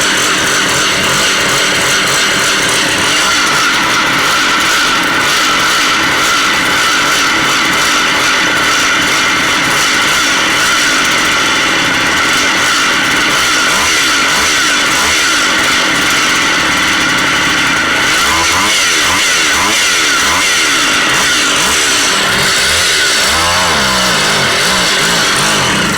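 Stihl MS170 two-stroke chainsaw running on a newly fitted aftermarket carburettor whose adjustment screws have not yet been set. It runs steadily, its speed wavers in the last several seconds, and it cuts off at the very end.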